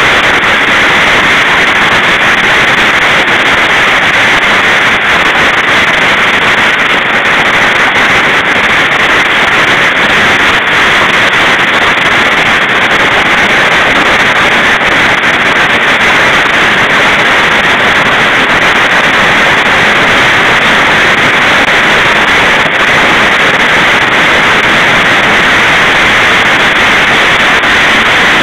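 Heavy hail falling, a dense, steady hiss of countless hailstones striking, with no let-up.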